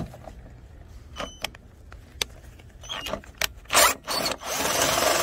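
Metal clicks as a socket on an extension is fitted onto a truck's battery hold-down bolt, then a cordless power tool starts with a short burst and runs steadily for over a second, spinning the bolt loose.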